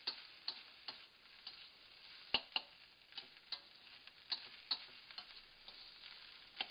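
Metal spatula clacking and scraping against a wok as fried rice is stirred and tossed, with a faint sizzle underneath. The sharp clicks come at an irregular pace of about two a second, the loudest about two and a half seconds in.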